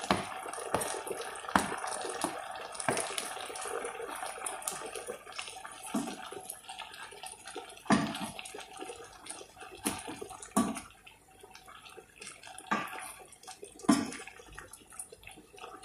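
Wooden spatula stirring string beans into a simmering vegetable stew in a stainless steel pan, knocking against the pan about every one to two seconds. Under the knocks runs a steady hiss of the bubbling sauce, which thins out in the second half.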